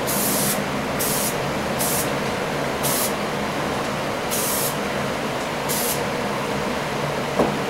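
Primer sprayed onto a small diecast car part in about six short bursts of hiss, over a steady background hum. A light click near the end.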